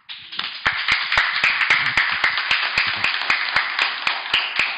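Applause from a small group of people clapping together. It starts suddenly and keeps up steadily, with individual claps standing out.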